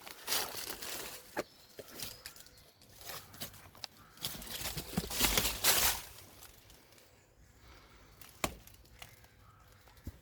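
Footsteps pushing through dense, overgrown undergrowth, with twigs snapping and brush rustling in irregular bursts. The loudest stretch of rustling comes about four to six seconds in, and there is one sharp snap near the end.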